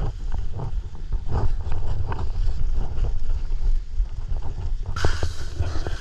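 Wind buffeting an action camera's microphone while skiing, a low steady rumble with scattered soft knocks. About five seconds in it changes abruptly to a brighter hiss of skis scraping over firm, groomed snow, with a few sharp clicks.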